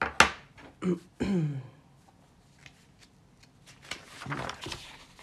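A woman's short wordless vocal sounds: a sharp burst right at the start, then a brief falling hum about a second in, and quieter murmuring around four seconds in.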